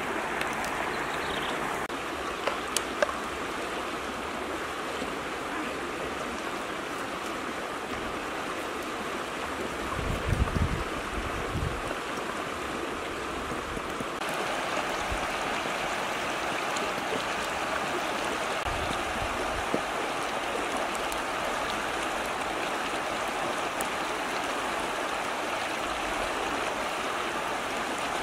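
Steady rush of a flowing river. A few light clicks come a few seconds in, and low thumps come around ten seconds in.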